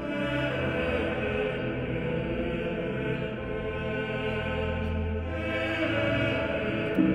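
Slow music of long, held, layered tones in a drone-like, chant-like texture. A short thump comes near the end.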